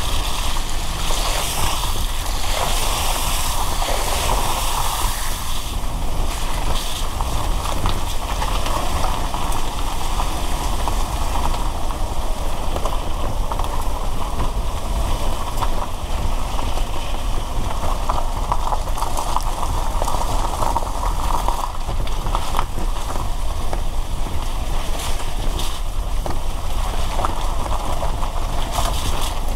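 Car driving on a wet road in the rain: a steady hiss of tyres on wet tarmac and rain over a low rumble of the car, swelling briefly in the first few seconds.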